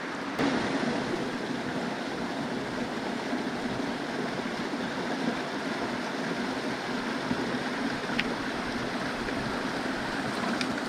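Steady rush of a flowing creek, with a single sharp click about half a second in.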